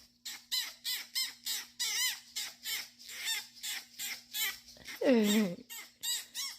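A small animal giving a rapid string of short, high-pitched chirping squeaks, about four a second, with one longer call falling in pitch about five seconds in.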